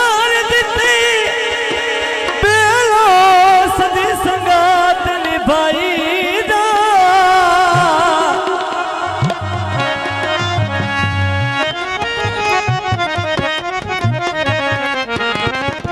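Live Punjabi folk music of the goon mahiye style. A long wavering melody is held over hand-drum beats, with steadier held notes from about ten seconds in, and no sung words.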